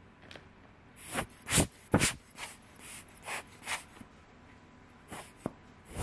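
Rubber lens air blower squeezed again and again at the camera to blow dust off the lens, each squeeze a short hissing puff of air. There are about seven puffs between one and four seconds in, then two more a little after five seconds.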